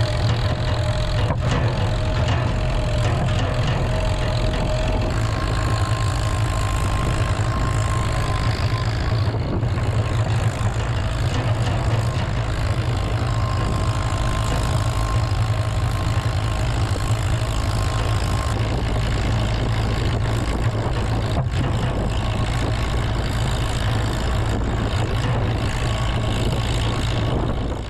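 Heavy farm machine's engine running steadily, with a faint high whine that comes and goes.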